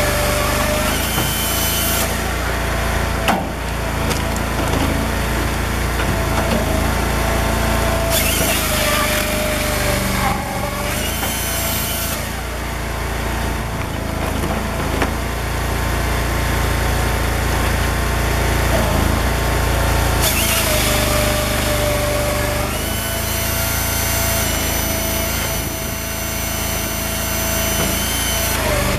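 Firewood processor at work: its engine and hydraulics run steadily with a whine that rises and falls as the machine loads up. Its saw bar with .404 chain cuts through logs in several stretches, and split pieces of firewood knock and clatter down, with a couple of sharp knocks.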